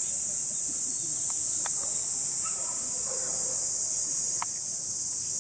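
Cicadas droning in a steady, high-pitched chorus, with a few faint short chirps over it.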